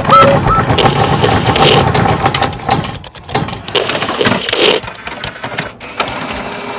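A ringtone of engine-like mechanical noise with many clicks, opening with a few short rising synth tones.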